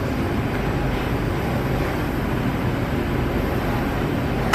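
Small gas torch burning with a steady rushing noise as it heats an enamelled bead on a mandrel, with a single sharp click right at the end.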